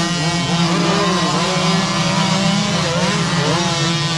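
Several small youth dirt bike engines revving at once, pitch rising and dipping over and over as they labour up a steep, rutted climb.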